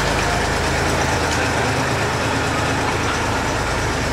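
Small vintage tractor engine running steadily as the tractor drives off.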